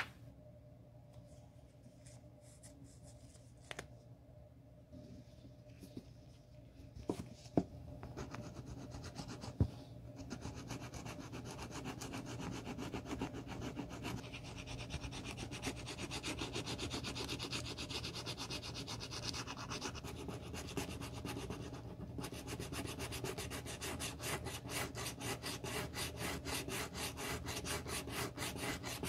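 A small square of sandpaper rubbed by hand along the edge of a leather-and-canvas wallet, sanding down the worn, damaged edge before it is re-coated. A few light handling knocks come first, the rubbing starts about ten seconds in, and it turns into quick, even back-and-forth strokes near the end.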